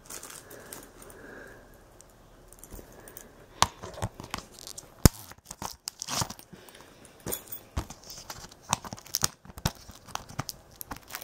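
Plastic shrink wrap on a DVD case crinkling and crackling as it is handled, with irregular sharp clicks.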